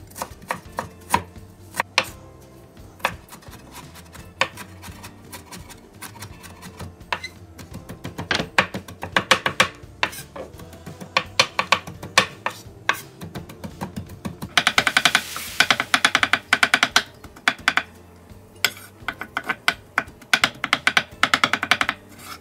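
Chef's knife chopping on a bamboo cutting board, dicing ginger and then mincing garlic. Slow single cuts give way to quicker chopping about eight seconds in, then to very fast mincing strokes about halfway through and again near the end.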